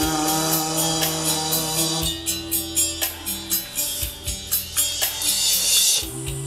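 Pop karaoke backing track playing an instrumental break between sung verses: a steady drum beat under held chords, with a rising hiss that cuts off near the end.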